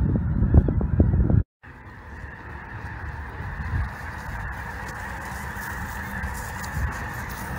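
A large flock of snow geese calling overhead: a continuous massed din of honking that slowly grows louder. It comes after a loud low rumble in the first second and a half that breaks off at a cut.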